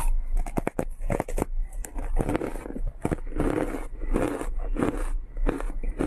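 Frozen matcha green-tea ice being bitten and crunched: a quick run of sharp cracks in the first second, then several heavier crunches.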